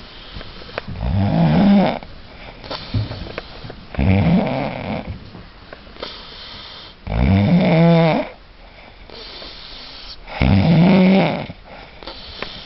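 A man snoring loudly in his sleep: four long, deafening snores about three seconds apart, each lasting about a second, with quieter breath sounds between them.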